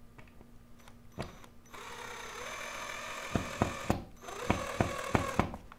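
Power drill running in short runs as it drives a mounting screw into a wall anchor, its pitch rising slightly, with a string of sharp clicks near the end.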